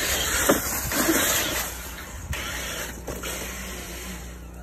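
Traxxas TRX-4 RC crawler truck driving through wet, slushy snow: a steady hiss that is louder in the first two seconds and then eases, with a few short knocks.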